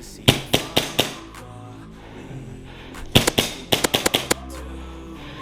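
Airsoft gun fire: four quick single shots, then a faster string of about eight shots a couple of seconds later, over background music.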